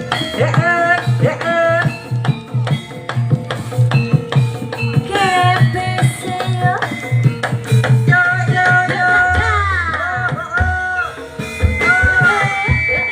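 Jaranan ensemble music: hand drums keep a steady, driving beat while a high melody slides and bends between held notes above it.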